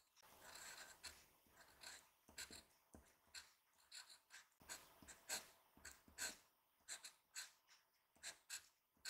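Seria 100-yen glass pen's glass nib scratching across paper in short, quiet strokes, a couple a second, as letters are written by hand.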